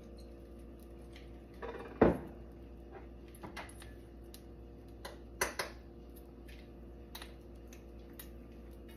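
A sharp knock about two seconds in as the oil bottle is set down on the countertop, followed by a few lighter clicks and knocks of kitchen items being handled. A steady low hum runs underneath.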